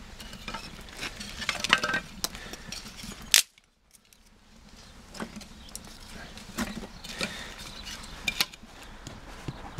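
Kindling sticks being handled and knocked together beside a wood fire burning in a car-rim stove: a run of sharp clicks and wooden knocks. The sound drops out briefly about three and a half seconds in.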